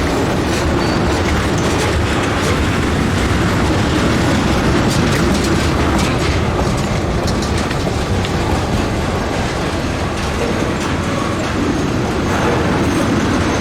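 Freight train of ethanol tank cars rolling past: a steady rumble of steel wheels on rail with irregular clicks over the rail joints and a few brief, faint high wheel squeals.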